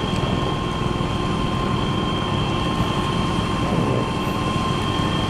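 Snowplow truck running steadily, a low engine and road rumble under a constant high whine.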